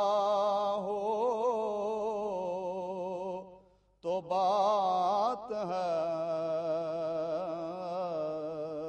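A man's voice sings the opening of a naat unaccompanied, in long drawn-out notes with a wavering vibrato. It breaks off briefly about three and a half seconds in, then slides upward and holds again.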